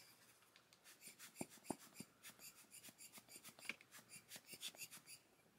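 Rubber bulb air blower squeezed over and over, giving faint, rapid, even puffs of air as it blows wet watercolor across the paper. A couple of soft clicks come about a second and a half in.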